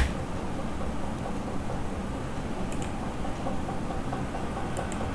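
Steady hiss and low hum from an open computer microphone, with a sharp click right at the start and two faint pairs of mouse clicks about three and five seconds in.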